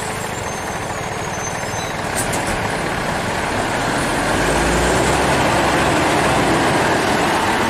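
Scania P420 truck's diesel engine running under load as it pulls a lowboy trailer carrying an excavator, getting louder about four seconds in.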